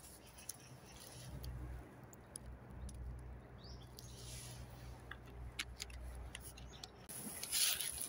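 Nuts tipped out of a plastic bottle onto a fallen log, scattered light clicks as they drop, with a rustle near the end. A steady low road rumble lies underneath.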